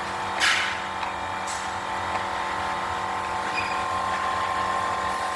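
A short scrape or rustle about half a second in, with a fainter one at about one and a half seconds, from parts being handled. Under it is a steady background hum with a thin whine near 1 kHz.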